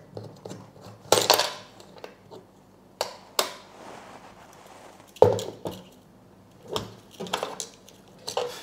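Scattered metallic clinks and knocks, the loudest about five seconds in, with a light rustle between them, as a spool of gasless flux-core welding wire is handled and fitted into a MIG welder's wire-feed compartment.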